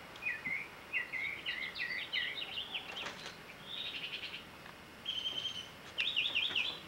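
Small birds chirping and singing in quick runs of short, high notes, with a brief steady whistled note about five seconds in.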